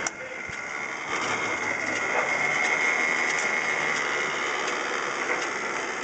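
Forklift running, with a steady high whine held for a few seconds and a few light clicks.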